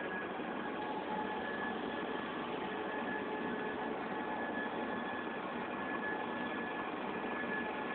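Steady, even hiss with faint thin tones drifting in and out of it.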